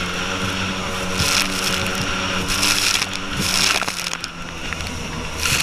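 Jet Mate jet boat's engine running steadily at speed, with bursts of water spray hissing against the hull several times as the boat cuts through the water.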